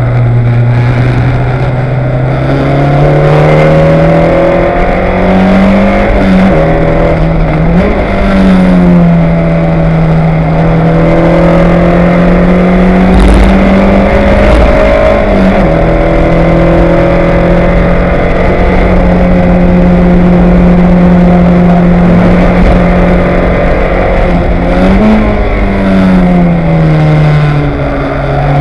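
Fun Cup race car's 1.8-litre petrol engine running hard at racing speed, heard from onboard. Its note climbs, drops sharply twice a few seconds in as it shifts gear, falls away, holds steady at high revs for a long stretch, and falls again near the end.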